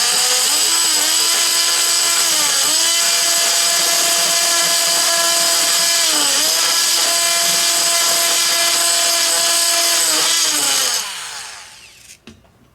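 Handheld power tool cutting through metal window hardware, running at a steady high pitch that sags briefly under load a few times, then winding down and stopping near the end.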